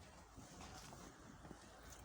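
Near silence: faint steady background noise with a few soft clicks.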